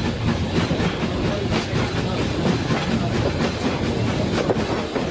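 Train running along the track: a steady rumble dotted with frequent clicks and rattles of wheels and rolling stock.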